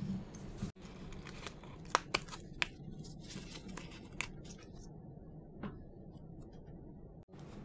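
Small pieces of cut paper being handled by hand on a work mat: soft crinkling with several sharp ticks and taps, a cluster of them about two seconds in. The sound drops out for an instant twice.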